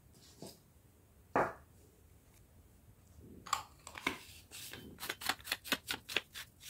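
Brass hand-held papad press being screwed closed after filling: a single knock about a second and a half in, then a quick run of clicks and scrapes, about five a second, as the brass body is twisted together.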